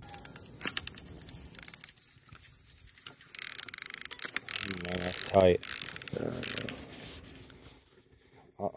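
A fishing reel ratchets in rapid clicks while a hooked sturgeon is being fought. Scattered clicks come first, then a dense, loud run of clicking for about three seconds in the middle, then it fades.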